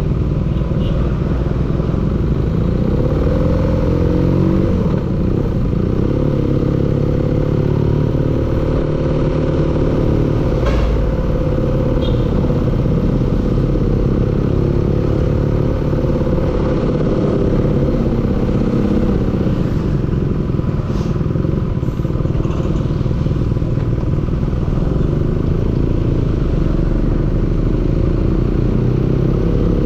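Engine running steadily, knocking. A single sharp click about eleven seconds in.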